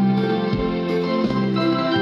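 Yamaha PSR-E463 portable keyboard playing sustained chords over its auto-accompaniment, with a low bass beat about every 0.7 s.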